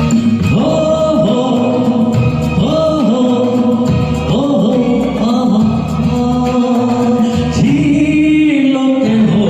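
A man singing a Hindi film song live over a karaoke backing track, holding and gliding between sustained notes.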